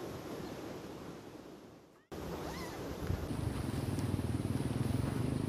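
Wind noise on the microphone. It fades out about two seconds in, then comes back louder and rougher after a cut, and a thin steady high tone joins about a second later.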